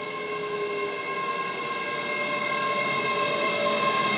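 ScotRail class 385 electric multiple unit arriving at the platform, its steady high whine and rail noise growing louder as it comes in.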